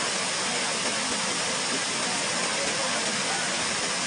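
Bu Sra Waterfall: steady, unbroken rush of falling and flowing water, a dense hiss with most of its energy in the upper range.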